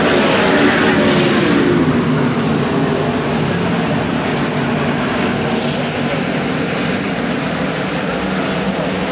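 World of Outlaws 410 sprint cars' V8 engines racing on a dirt oval. A car passes close by with its engine note falling in pitch over the first couple of seconds, then the field goes on as a steady, loud drone from down the track.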